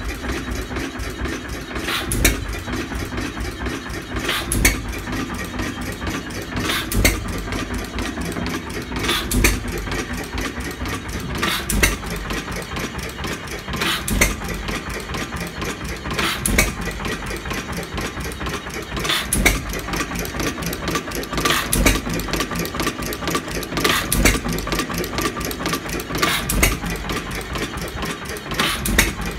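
1909 Domestic 1 hp hit-and-miss engine running, firing with a sharp bang about every two and a half seconds and coasting on its flywheels between the firings, with a steady mechanical clatter in between.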